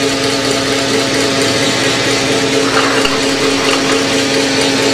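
Gas range burner running with a steady hiss under a small pan, over a steady machine hum.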